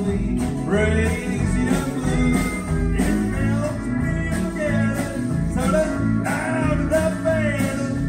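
Live country band playing a song: pedal steel guitar, electric and acoustic guitars and drums, with gliding melodic lines over a steady beat.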